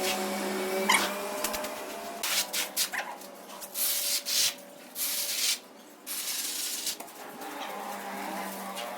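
Irregular scraping and rubbing with a few short knocks, over a steady low hum: the sound of tile-laying work.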